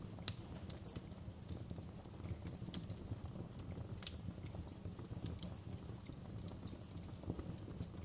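Wood fire in a fireplace crackling, with irregular sharp pops over a low steady rumble; the sharpest pops come just after the start and about four seconds in.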